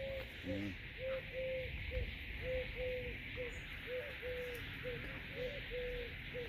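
Pigeon cooing: a steady run of short coos, each held at one pitch, about one a second, over a steady background hiss.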